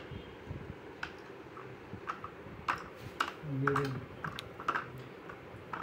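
Light, irregular clicks and taps as the parts of a children's tricycle are handled during assembly. A short voice sound comes a little past halfway.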